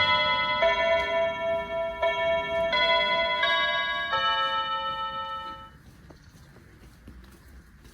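SilverCrest SFK 16 B2 wireless doorbell receiver playing an electronic chime melody, with a new note about every two-thirds of a second. The tune ends about six seconds in, leaving only a few faint clicks.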